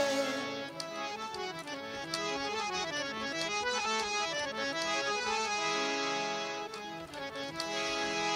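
Instrumental interlude of Indian folk devotional music: a harmonium playing a stepping melody of held notes, with a few light percussion taps.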